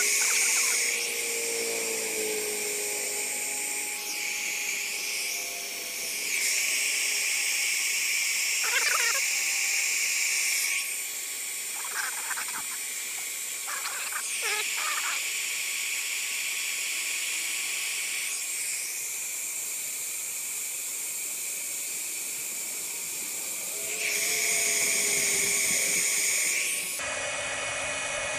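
Small electric heat gun running, its fan giving a steady whine and hiss, as it shrinks sleeves over the submersible pump's wire splices. It gets louder for a few seconds three times, near the start, about a third of the way in and near the end.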